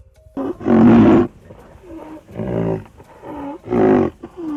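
Rhinoceros calling: a run of about six low, pitched grunting calls, the first the loudest and the last one longer and held.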